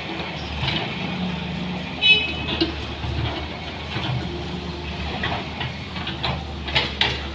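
Daewoo wheeled excavator's diesel engine running steadily while its bucket digs into sandy soil, with scattered knocks and scrapes that are loudest near the end. A brief high-pitched tone stands out about two seconds in.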